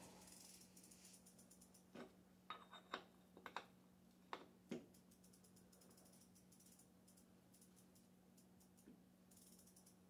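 Sharp metallic clicks and taps from hand tools worked at a bicycle crank: about seven in a few seconds, irregularly spaced, starting about two seconds in. A faint steady hum sits beneath.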